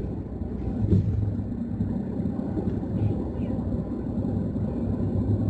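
Road and engine noise inside a car's cabin at highway speed: a steady low rumble, with one brief thump about a second in.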